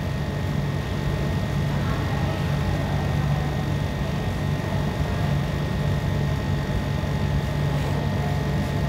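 Steady low hum with a faint high whine: continuous room background noise.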